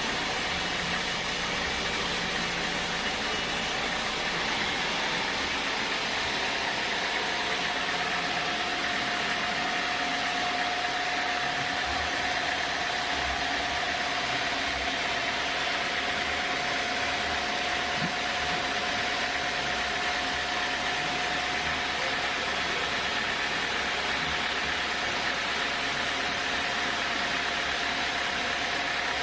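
Sawmill machinery running steadily, a constant mechanical noise with a steady whine that grows clearer about ten seconds in.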